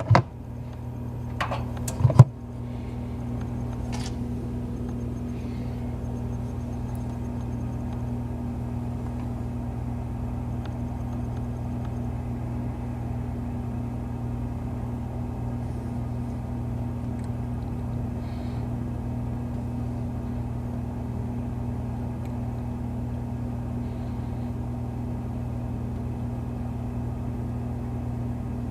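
Toaster oven running, a steady low electrical hum, with a few sharp clicks in the first two seconds.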